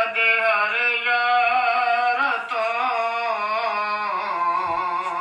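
A single voice singing a naat, an Islamic devotional song, in one long phrase of held notes that glide and waver in pitch.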